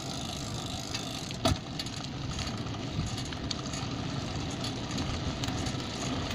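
Steady rumble of a bicycle rolling along pavement, with street traffic noise behind it and one sharp knock about a second and a half in.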